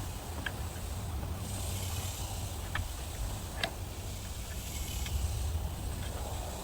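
Steady low mechanical hum with a light hiss and a few faint clicks.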